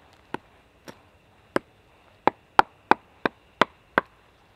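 A hand tool striking wood: about nine sharp blows, the first two softer and slower, then a louder run at roughly three blows a second.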